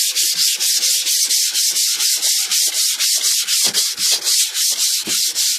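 Sandpaper rubbed by hand over a car door's painted steel in quick back-and-forth strokes, about six or seven a second, scuffing the old paint so new paint will stick.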